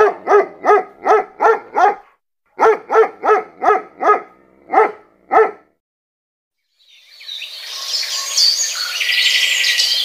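Dog barking: about a dozen sharp barks in quick runs of roughly three a second, stopping about five and a half seconds in. After a short gap, birdsong fades in, a dense chorus of chirps and trills.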